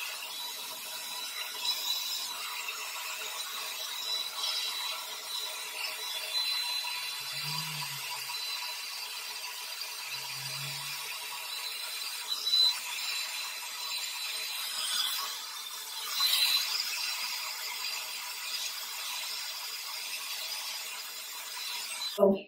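Handheld hair dryer blowing steadily: an even rushing hiss with a thin high whine, drying Got2b Glued freezing spray on a lace wig cap. It cuts off abruptly just before the end.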